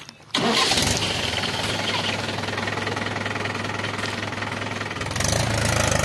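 Mahindra tractor's diesel engine starts suddenly about a third of a second in and runs steadily, getting louder about five seconds in.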